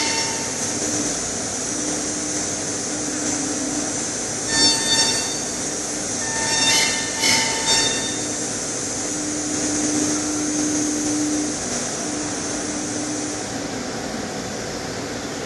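CNC machine turning a stair post held in a lathe: a steady spindle whine and hiss, with a tone that comes and goes and a few short, louder squealing bursts as the cutter bites.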